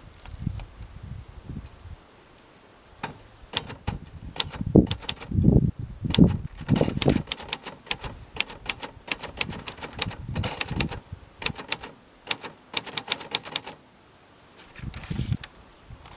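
Royal Aristocrat manual portable typewriter being typed on: a run of key strikes at an uneven pace lasting about ten seconds, with heavier thuds among the clicks. A brief noisier mechanical sound follows near the end.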